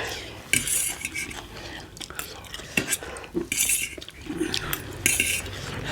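Eating utensils clinking and scraping against a plate while dumplings are eaten: scattered sharp clicks and three short scrapes.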